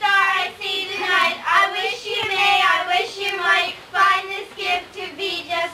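A child singing, with other children's voices close by.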